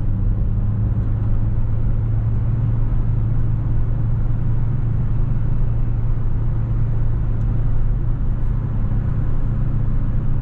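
Steady engine and tyre drone heard inside the cabin of a 2003 Chevrolet Trailblazer driving down the road at an even speed.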